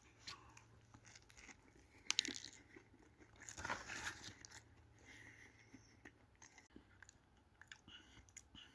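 A person biting into and chewing a crispy fried chicken sandwich topped with crispy onions, faint crunches and mouth clicks, loudest about two seconds in and again around three and a half to four and a half seconds in.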